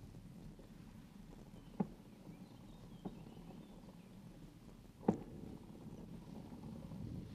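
Bicycle rolling over a rutted dirt track, a steady low rumble of tyres and wind on the bike-mounted camera, with sharp knocks as the bike jolts over bumps: one a little under two seconds in, a fainter one about three seconds in, and the loudest about five seconds in.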